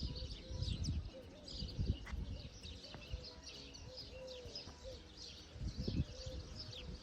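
Small songbirds chirping and twittering continually in the morning countryside, with occasional low rumbles on the microphone.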